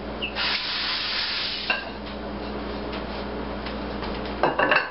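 Minced garlic sizzling gently in butter and olive oil in a stainless saucepan over a low gas flame, louder for about a second early on, with a few short clicks near the end.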